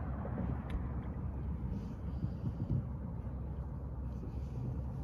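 Steady low rumble of a fishing boat on the water, with a faint click about a second in.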